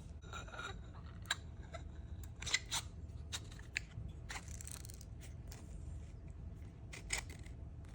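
Piston ring compressor being fitted around a piston with its clocked rings: scattered light metallic clicks and handling noises, a couple of sharper clicks near the middle and one near the end.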